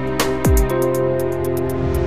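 Closing-credits background music: held chords with a deep falling boom about half a second in and a steady run of short high ticks.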